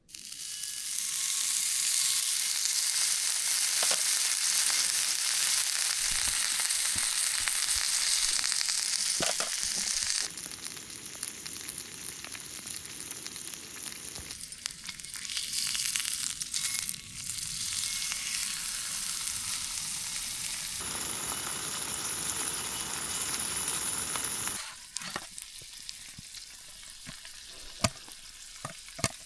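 Steak frying in a hot pan, a steady loud sizzle that jumps in level at a few points. A few light clicks near the end.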